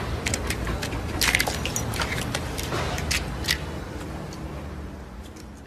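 A husky clambering up a tree trunk: its claws scratch and scrape on the bark and leafy branches rustle and crack. A quick flurry of sharp scrapes and cracks thins out near the end.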